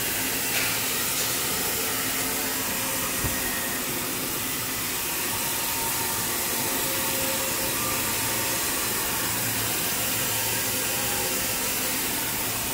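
Running factory machinery: a steady blower-like hiss with a low hum underneath. A short knock sounds about three seconds in.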